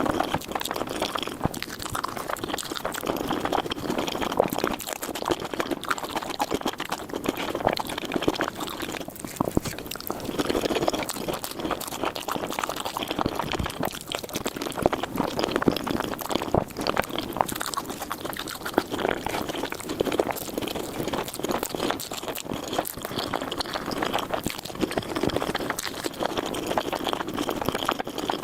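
Close-miked eating sounds of noodles, sped up four times: rapid wet slurping, chewing and smacking that run together in a dense stream of small clicks.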